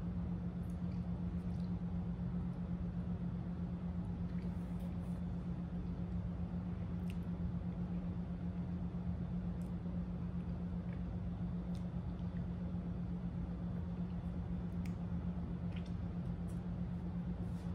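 A steady low hum fills the room, with a few faint soft clicks and smacks of mochi ice cream being chewed.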